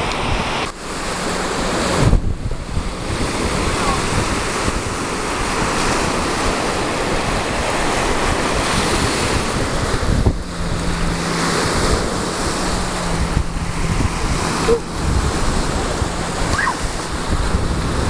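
Small waves breaking and washing up on a Lake Erie beach, a steady rush of surf mixed with wind rumbling on the microphone.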